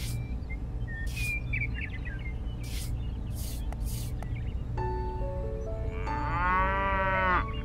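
A small trowel scrapes across sand in about five short strokes. About five seconds in a simple music melody starts, and a cow moos once over it for about a second and a half, rising and then falling in pitch.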